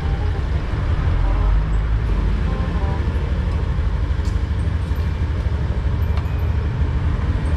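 Fuel-injected motorcycle engine idling steadily at a low idle of about 1,300–1,400 rpm, low enough that it dies on cold mornings. A few faint clicks sound around the middle.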